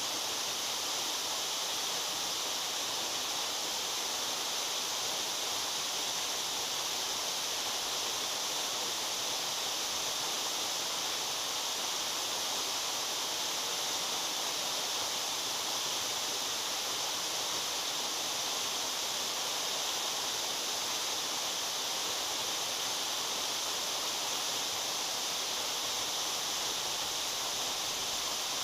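Waterfall: water falling and splashing in a steady, unbroken rush, bright and hissy in tone.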